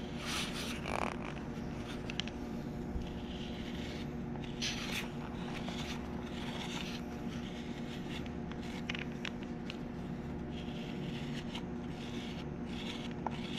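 Large round trimming tool scraping the inside of a leather-hard clay tea bowl in short, irregular strokes, paring off curls of clay, over a steady low hum.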